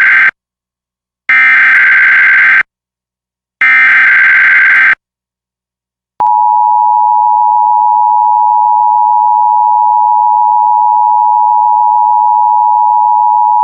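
Emergency Alert System SAME header: the end of one burst of digital data tones, then two more identical bursts of about a second and a half each, the header sent three times. About six seconds in the two-tone EAS attention signal starts, a loud steady dual tone.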